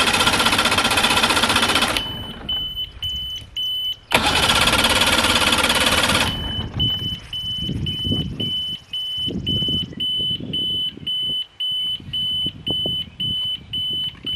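1970 Mercury outboard cranked on its electric starter in two bursts of about two seconds each, not catching. Then a warning beeper sounds in short high beeps about twice a second, over soft handling thumps while the fuel system is being primed.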